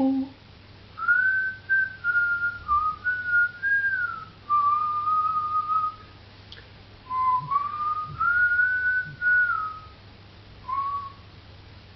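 A person whistling a wandering tune in two long phrases, then one short note near the end.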